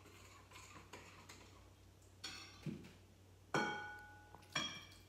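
A spoon and a glass measuring cup clinking against a mixing bowl while borax activator is added to glue for slime: four sharp clinks in the second half, each ringing briefly, with faint scraping before them.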